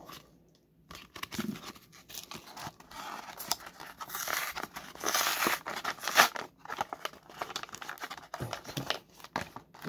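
Crinkling and tearing of a Pokémon card mystery pack's packaging being opened by hand, starting about a second in, growing busier toward the middle with a sharp rip a little past halfway.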